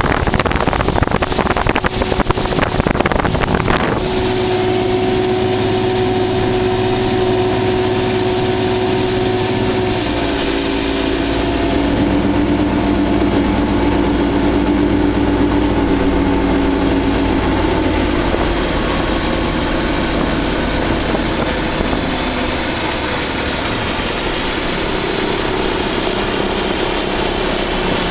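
Bass boat's outboard motor running. Wind buffets the microphone for the first few seconds at speed, then the engine settles into a steady hum that steps down in pitch twice as the boat is throttled back.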